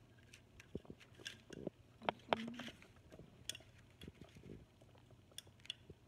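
Spoon and clear plastic cups being handled: scattered light clicks, taps and knocks, with a short squeak a little over two seconds in.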